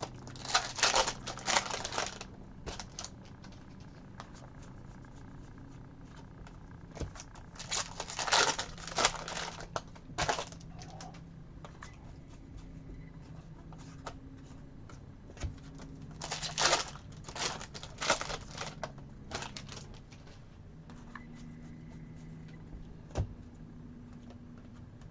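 Trading cards and pack wrappers being handled, with papery clicking and crinkling rustles in three short spells of a few seconds each. A faint low hum runs underneath.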